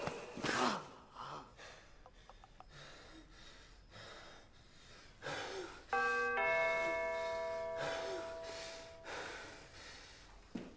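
A doorbell chimes a two-note ding-dong about six seconds in, the second note ringing on and fading over a couple of seconds. Soft heavy breathing is heard around it.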